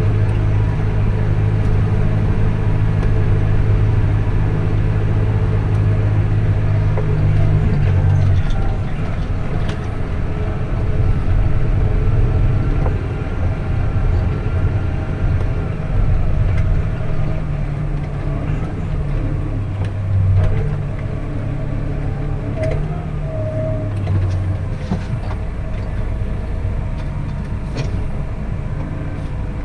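Tractor engine running under steady load with a low drone; its note drops about eight seconds in and rises and falls a little after that.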